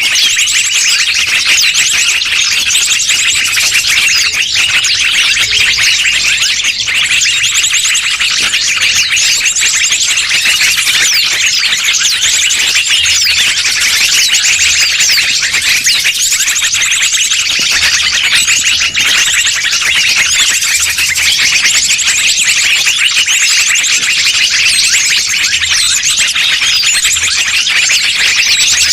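Bird-luring call recording: a loud, unbroken chorus of shrill, rapid bird chirps and trills, played to draw wild birds in.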